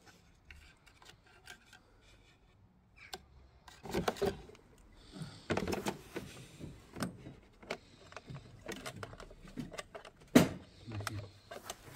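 Scattered light clicks and knocks of a small spanner working on a metal standpipe fitting in the plastic top of a fuel-tank sender unit as it is tightened, with one sharper click about ten seconds in.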